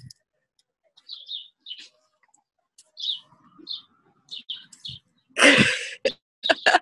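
Small birds chirping in short, repeated calls. About five and a half seconds in comes a loud, short noisy burst, followed by a few sharp clicks.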